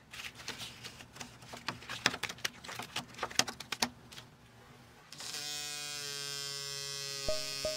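Card-shaped robots being laid down and tapped on a table with a quick run of light clicks. From about five seconds in, their vibration actuators buzz steadily together as they slide over the tabletop.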